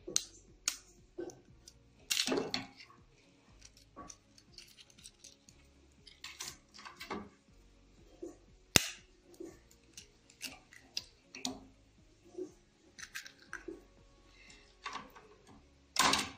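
Eggs being cracked with a kitchen knife over a plastic bowl: a series of short taps and clicks of the blade on the shells, the sharpest about nine seconds in, as the shells break and the eggs drop into the bowl.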